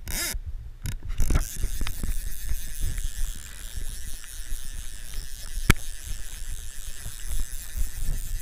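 A fly reel's click-and-pawl drag ratcheting as line runs off or is wound in: a steady run of fine clicks, with one sharper click a little past halfway.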